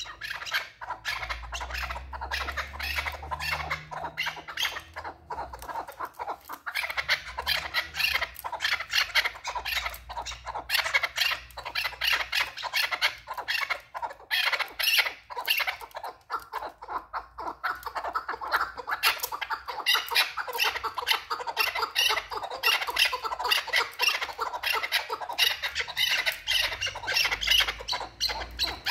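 Chukar partridges calling: a long unbroken run of rapid, repeated harsh notes, several a second.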